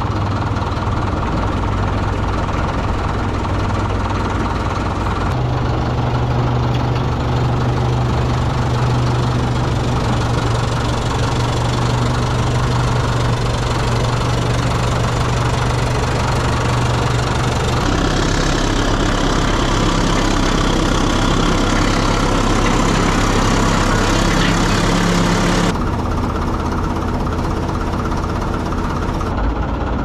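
Heavy diesel engine idling steadily with a low, even knock, its pitch and tone jumping abruptly a few times.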